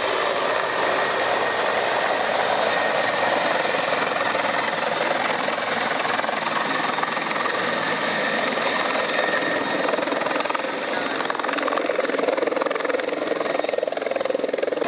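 Helicopter landing, its rotor and turbine running in a steady dense roar, with the rotor downwash blowing across the microphone.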